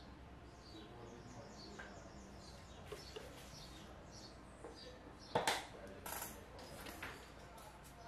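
Quiet room sound with faint, quick high chirps repeating through the first half, and a few sharp clicks, the loudest about five and a half seconds in.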